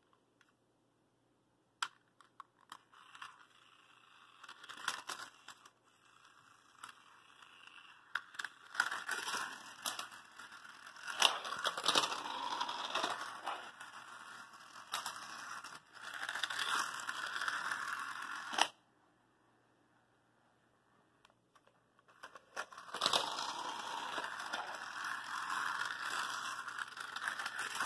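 Battery-operated toy car running along a flexible plastic race track, making a continuous clattering rattle as its small motor and wheels work over the track links. A few scattered clicks come first as it is handled and set down; about two-thirds of the way through the rattle cuts off suddenly, then starts up again a few seconds later.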